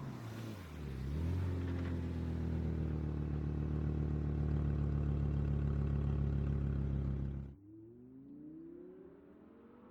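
Audi R8 sports-car engine: revs drop in the first second, then it holds a loud, steady note for about six seconds before the sound cuts off abruptly. After the cut, a much fainter engine note rises steadily in pitch as it speeds up.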